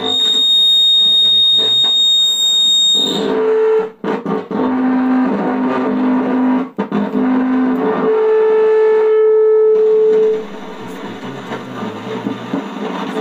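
JK 77-watt PA amplifier putting out its fault noise through the speaker: a loud steady high-pitched whistle for about three seconds, then a rustling, crackly noise with low droning tones that cut in and out. The owner traced this noise to a failed C1815 transistor.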